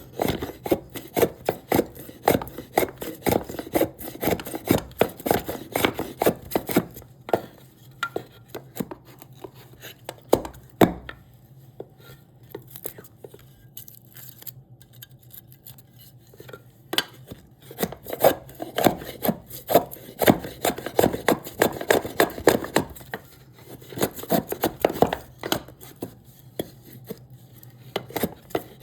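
Quick wooden knocks of cherry wood being chiseled and shaped by hand, about three strikes a second. The strikes break off for about ten seconds in the middle, with only a few scattered knocks, and then resume.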